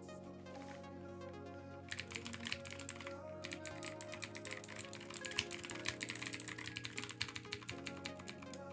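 Fast typing on a Drevo Calibur mechanical keyboard with Outemu Blue clicky switches, giving a dense run of sharp, high-pitched clicks. The typing starts about two seconds in and pauses briefly near three seconds. Background music plays throughout.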